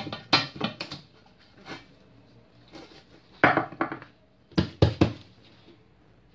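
Heavy metal pans knocking and scraping together as an upturned pan is set on semolina dough in a cast-iron frying pan and pressed down to flatten it. There is a cluster of clanks at the start, another about three and a half seconds in, and two sharp knocks about five seconds in.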